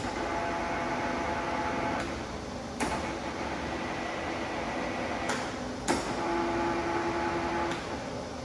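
Large sliding-bed lathe running, a steady mechanical hum with whining tones from its drive, the pitch of the whine changing after sharp clicks about every three seconds.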